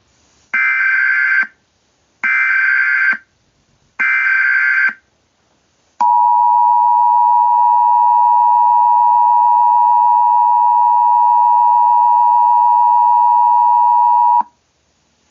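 Emergency Alert System signal. First come three short data bursts of about a second each, the SAME header. About six seconds in, the two-tone attention signal starts: a steady, loud dual tone held for about eight seconds, then cut off suddenly.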